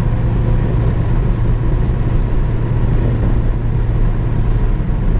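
A vehicle driving along at steady speed: a constant low engine and road drone with no change in pace.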